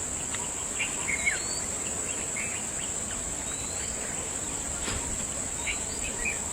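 Insects, such as crickets or cicadas, keeping up a steady high-pitched drone. Short chirps and a brief rising whistle about every second and a half are scattered over it.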